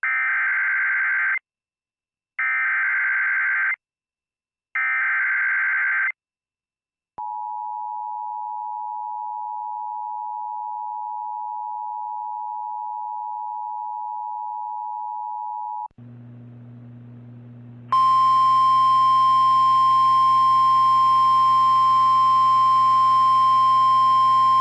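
Emergency Alert System activation: three short bursts of SAME header data tones, about a second each, which encode the alert. Then the two-tone EAS attention signal is held steady for about nine seconds. After a brief low hum, a louder steady single tone begins about 18 seconds in.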